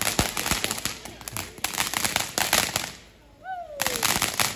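Ground firework fountain crackling as it sprays sparks. It dies down for a moment about three seconds in, then crackles again.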